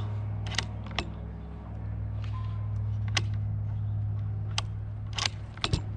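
Light clicks and knocks of a rifle being handled on a shooting bench while the shooter settles in behind the scope, over a steady low hum.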